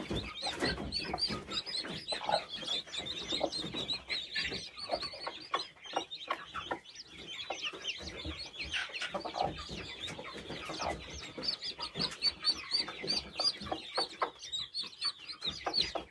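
Newly hatched chicks peeping continuously in fast, high chirps, with a broody hen clucking low among them.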